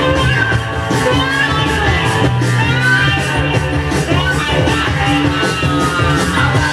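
Blues-rock recording with electric guitar over bass and drums, cymbals keeping a steady beat.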